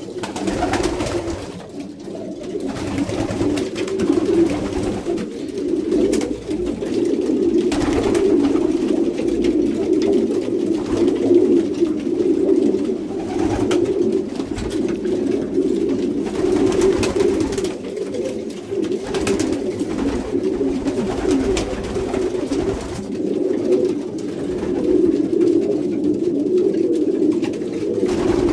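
Many domestic racing pigeons cooing at once, a continuous overlapping murmur of coos in a small wooden loft. The cocks are courting hens while the birds are let loose to pair.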